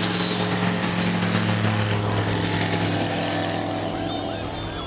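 Homebuilt light aircraft's propeller engine running with a steady drone as the plane rolls away down the runway, fading a little near the end. A few shouts or whistles from the crowd come in near the end.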